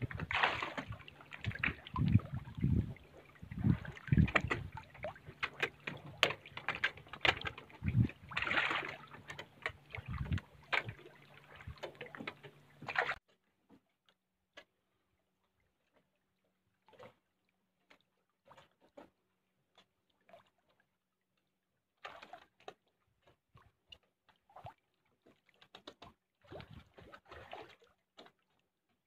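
Water splashing and sloshing irregularly as a dense crowd of farmed fish churns at the surface of a cage, over a faint steady low hum. About 13 seconds in it drops suddenly to faint, scattered small splashes and ticks.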